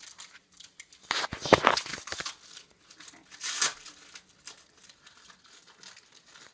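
A pack of trading cards being torn open by hand, its wrapper tearing and crinkling in bursts: the loudest cluster about one and a half seconds in, another sharp tear about three and a half seconds in, then lighter crinkles.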